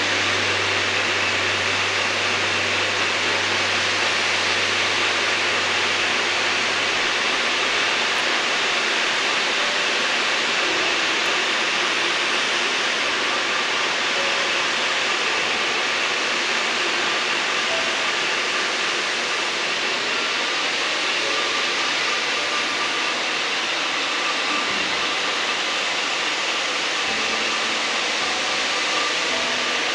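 Steady rushing noise of iron ore pellets pouring down the ore dock's chutes into a lake freighter's holds. A low hum underneath fades out about eight seconds in.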